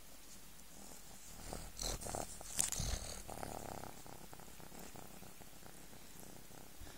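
A kitten purring close to the microphone while being stroked. A cluster of rustles and bumps from fur brushing the phone is loudest about two to three seconds in.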